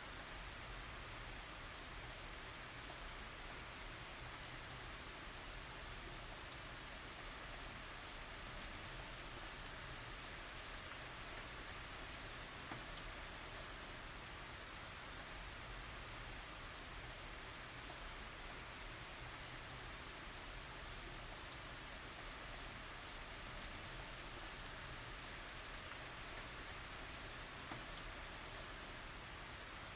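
Steady tropical rain falling, an even hiss of drops with faint individual drop ticks, no thunder.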